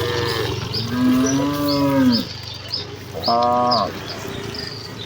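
Cattle mooing: the tail of one moo at the start, then a long, low moo about a second in, and a shorter, higher-pitched moo a little past three seconds.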